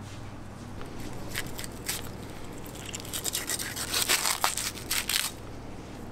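A knife cutting through the tough skin and flesh at a bluefin tuna's collar: a rough scraping and crackling of the blade, a few strokes at first, then dense from about three seconds in, stopping just after five seconds.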